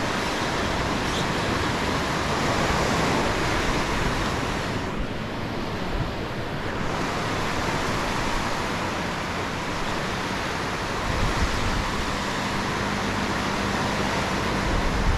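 Ocean surf breaking and washing up a sand beach, a steady rush of waves.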